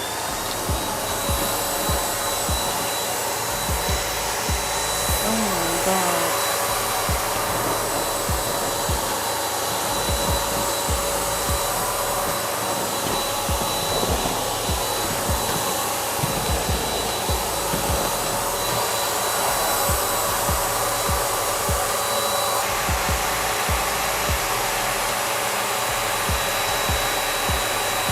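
Electric air pump running steadily, blowing air through a hose into a large reusable balloon ball to inflate it: a constant blowing whir with a thin steady whine.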